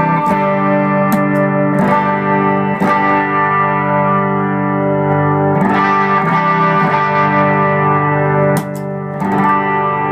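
Electric guitar played through an Xotic EP Booster pedal, chords strummed and left to ring, restruck every one to three seconds. The booster is in its unity-gain setting, giving the warm Echoplex-preamp tone with no added gain.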